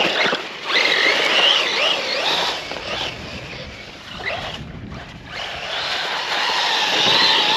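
Electric motor of a Losi RC truck whining up and down in pitch as it is driven hard, over a steady rush of tyres and wind. The run eases off briefly a little past the middle, then picks up again.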